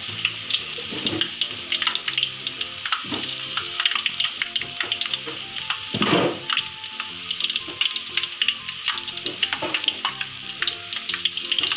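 Battered eggplant slices deep-frying in hot oil in an aluminium wok: a steady sizzle full of small crackles, with one louder rush about six seconds in.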